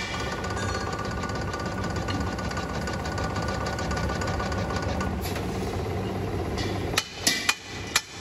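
Heavy metal-forming press running steadily as its die closes on a steel cylinder ring, with a constant low hum. A few sharp knocks come near the end.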